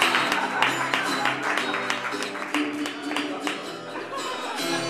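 Acoustic guitar strummed steadily through chords between sung lines.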